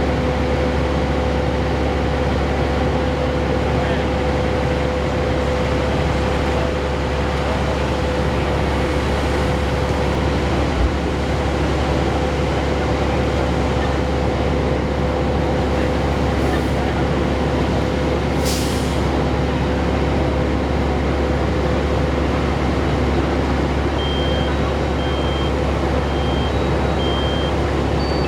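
Heavy truck engine idling steadily with a deep hum. A short hiss comes about two-thirds of the way through, and a series of short, high electronic beeps starts near the end.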